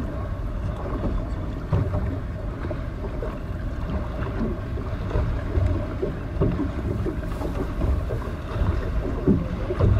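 Wind and water noise from a small boat under way: a steady low rumble with irregular low thumps.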